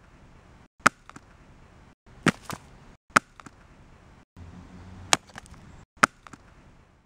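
A phone slammed down again and again against a Lego motor: about six sharp cracks at uneven intervals, some followed by small rattling clicks.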